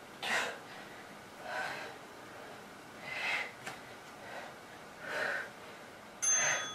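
A woman breathing hard through a set of push-ups, with a short, sharp breath on each repetition, about one every one and a half to two seconds.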